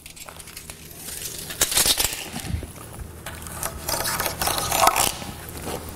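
Utility knife cutting across uniaxial geogrid laid over a 2x4: irregular scraping crackles and snaps as the blade draws through the grid strands, loudest about two seconds in and again around four to five seconds in.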